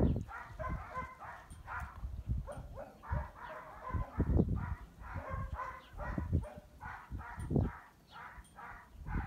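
Dogs barking and yipping in a rapid run of short calls, several a second, with a few low thumps mixed in.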